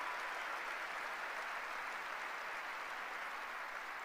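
Audience applauding, slowly fading.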